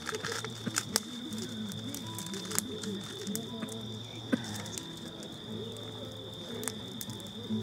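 Crickets chirping in a steady high trill, with low indistinct voices and a few sharp clicks.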